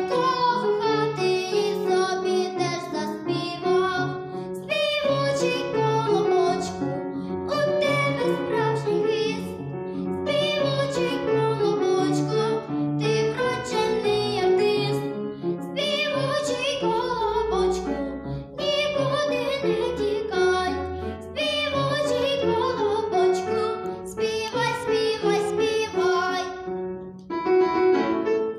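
A young girl singing a lively children's song with piano accompaniment. Near the end her voice stops and the piano plays on alone.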